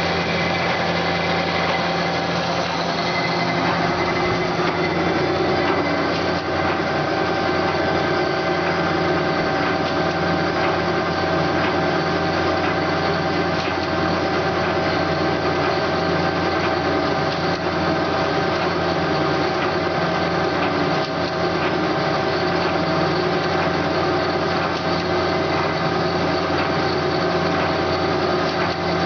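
DoAll C916SA horizontal bandsaw running steadily, a constant motor and blade-drive hum that does not change.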